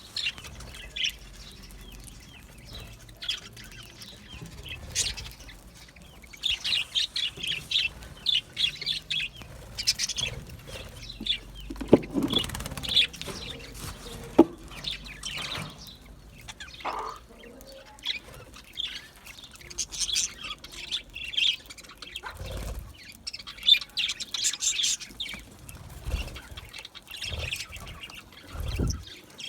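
Budgerigars chirping, with many short high chirps coming in dense clusters. A few low thumps come in the second half.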